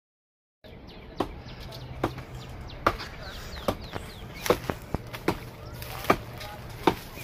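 Chopping blows of a blade into a moringa (drumstick) tree, sharp single strokes about one a second after a brief dropout at the start. Birds chirp faintly.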